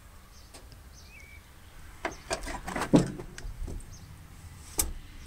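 Old pickup truck's door being opened: a run of handle and latch clicks and knocks, the loudest about three seconds in, with another sharp click near the end.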